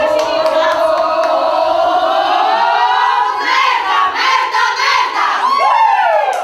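A group of women giving one long, drawn-out shout together as a rally cry. Their voices hold a note that slowly climbs in pitch, then swoop down near the end.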